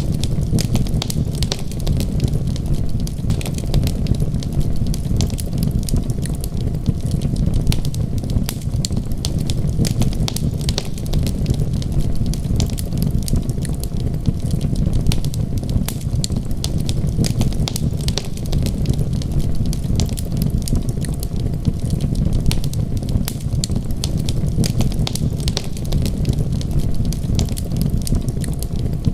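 Wood fire crackling, with a dense run of small sharp pops and snaps over a steady low rumble.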